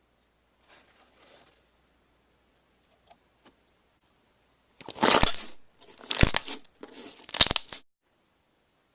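Slime being squished and pressed by hand: a faint rustle about a second in, then three loud, noisy squishes in quick succession past the middle, each under a second long.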